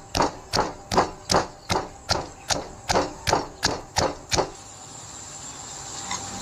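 Knife chopping on a cutting board in even strokes, about three a second, stopping after about four seconds; then a steady hiss.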